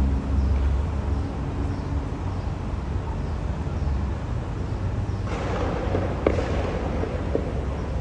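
Steady low rumble of outdoor city background noise, with a louder rushing swell about five seconds in and a sharp click just after six seconds.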